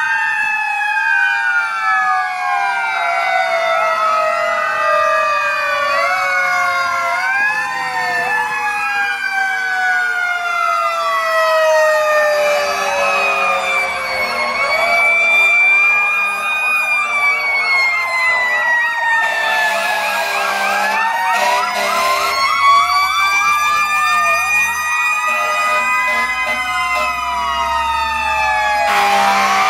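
Several fire truck sirens sound at once as the trucks pass in a line, their wails and yelps overlapping and some long tones slowly falling in pitch. Truck engines rumble underneath, and there are a couple of short, harsh noisy blasts near the middle and the end.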